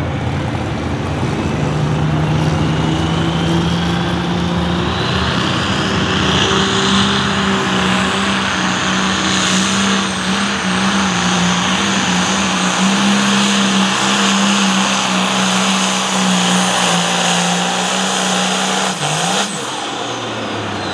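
Turbocharged diesel engine of a John Deere 4560 pro stock pulling tractor running flat out under load as it drags a weight-transfer sled. A high whine rises over the first few seconds and holds. Near the end the engine note drops off as the pull ends.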